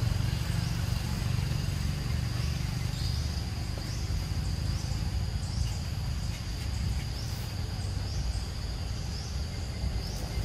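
Outdoor ambience of insects: a steady high-pitched drone with a short rising chirp repeating about once a second, over a continuous low rumble.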